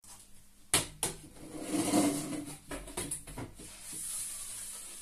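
A plastic drainpipe being handled and lifted upright against a workbench: two sharp knocks about a second in, a scraping rub, then several lighter clicks.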